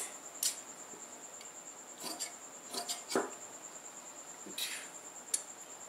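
Large steel tailor's shears cutting through cotton fabric in a few short snips, with the cloth rustling as it is handled and smoothed on the table.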